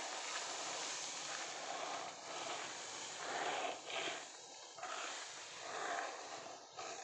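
Dry coffee cherries rustling and scraping as they are raked across the drying ground, a steady gritty hiss that swells a few times with the strokes.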